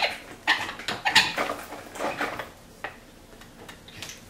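Homemade wooden bar clamp squeaking in short strokes as its eye-bolt screw is turned to tighten the jaws. There are about half a dozen squeaks in the first two and a half seconds, then only faint ones.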